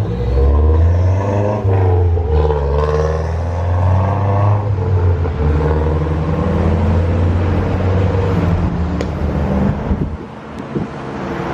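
Road traffic passing close by: car engines running, one changing pitch as it accelerates in the first few seconds, then a steadier engine note. The traffic noise drops off about ten seconds in.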